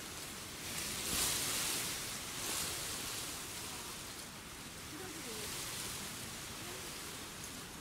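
Wind through a hillside of silver grass (Miscanthus), a steady rustling hiss that swells in a gust about a second in and eases off again.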